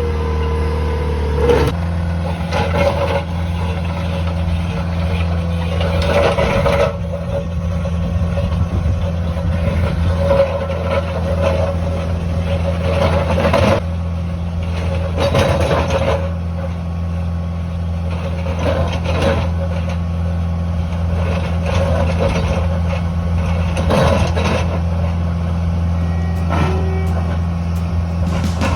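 A heavy machine's engine running steadily at a constant speed, with repeated clanks and rattles every few seconds.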